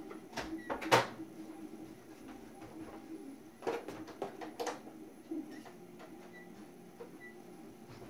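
Several sharp clicks and knocks over a steady low hum. The loudest comes about a second in, and a quick cluster follows about four seconds in.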